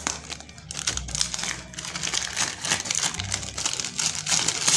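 Black plastic courier mailer bag crinkling and rustling as it is handled and turned over in the hands, in many irregular short strokes.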